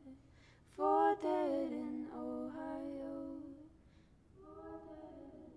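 A solo voice singing without accompaniment, drawing out long held, wordless notes with a slide in pitch on the loudest one, then trailing off softly.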